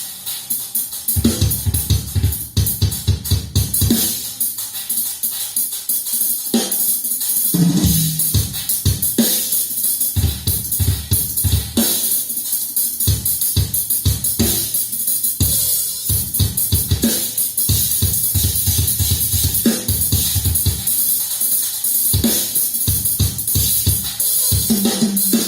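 Recorded drum kit played back through Infinity Kappa 7 loudspeakers: fast runs of bass-drum strokes under a steady wash of cymbals, with a brief lower-pitched drum fill about eight seconds in.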